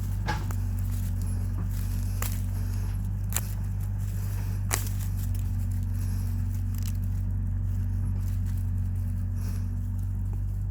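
A wooden stick scraping and prying in soil while digging up deodeok roots, with a few sharp clicks, over a steady low hum.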